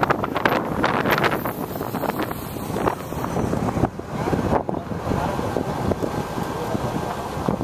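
Wind buffeting the microphone over the engine and tyre noise of a car driving slowly, recorded from the moving car. The wind gusts hardest in the first couple of seconds.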